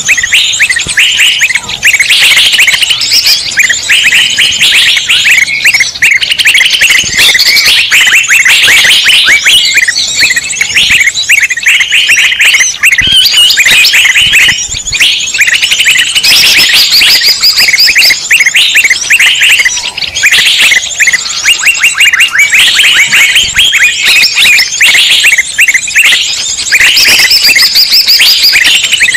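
A dense, loud chorus of many small birds chirping and trilling all at once, without pause: a noisy mixed-species bird-lure recording of the kind played to draw wild birds in.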